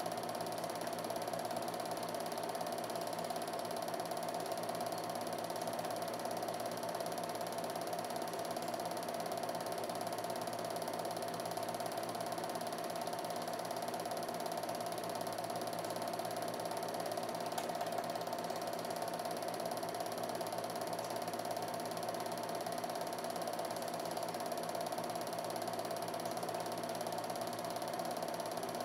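Home-movie film projector running: a steady mechanical whir and clatter with a constant hum that never changes.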